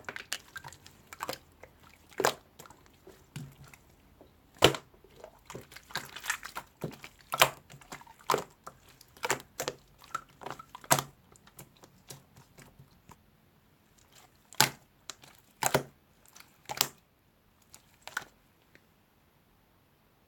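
Irregular sharp clicks and crackles, some loud and some faint, unevenly spaced, dying away about two seconds before the end.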